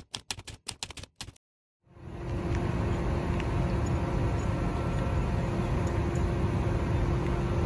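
A quick run of typewriter keystroke clicks for about a second and a half, then a short silence. After that, a steady diesel engine rumble with a faint steady hum, from the Tadano GR1000N-1 rough-terrain crane running.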